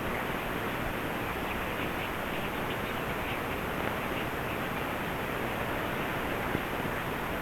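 Steady static hiss from an AM radio receiver tuned to a station carrying no programme audio: dead air.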